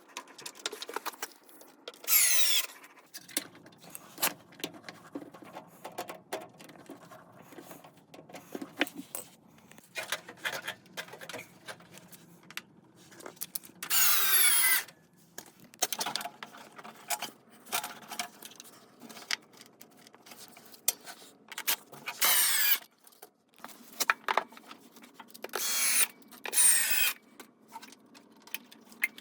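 Cordless drill-driver running in five short bursts of about a second each, its whine dropping in pitch during each burst, as screws are driven or removed. Scattered clicks and knocks of handled parts come between the bursts.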